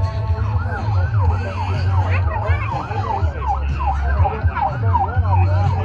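Emergency-vehicle siren in yelp mode: a fast, repeated rising-and-falling wail, about three cycles a second, that slows into a single long rising wail near the end, over a steady low rumble.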